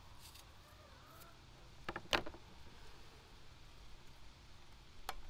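Small, sharp clicks and crackles of vegetables being peeled and trimmed by hand with a small knife, a quick cluster about two seconds in and another pair near the end, over a faint low outdoor rumble.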